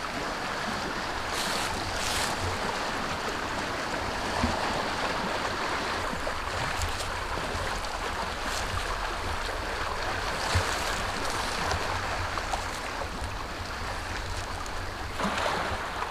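Steady outdoor noise of water lapping along a shoreline and wind, with a low rumble that comes and goes from wind on the microphone.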